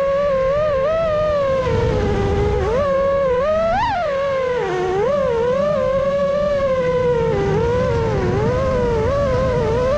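FPV quadcopter's brushless motors and propellers whining in flight, the pitch constantly rising and falling with throttle and peaking sharply about four seconds in, over a low rumble of wind and prop wash.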